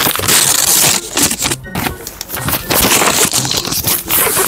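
Brown paper wrapping crinkling and rustling in quick irregular bursts as hands pull it open and crumple it around a packet inside.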